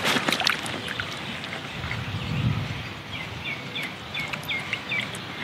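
A mirror carp flapping on an unhooking mat, a few quick slaps right at the start, then a small bird chirping a quick run of short notes over outdoor background near the end.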